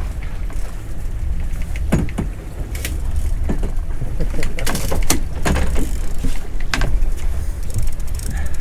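Outboard motor running steadily as the small boat moves ahead, with a low rumble of motor, water and wind. Several sharp clicks stand out about two seconds in and again between about five and seven seconds.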